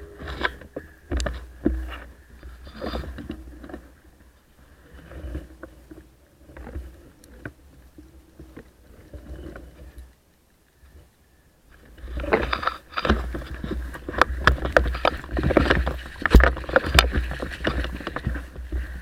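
Footsteps and rustling as a person moves through dry leaves and brush in woodland: irregular crackles and scrapes, sparse and quiet for the first several seconds, pausing briefly, then denser and louder from about twelve seconds in.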